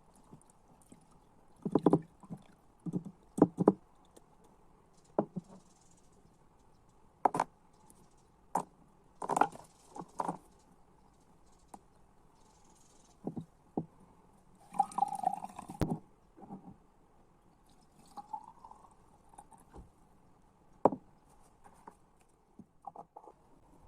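Scattered taps and knocks of a jar being handled while the tincture is made, with a short stretch of rushing noise about fifteen seconds in.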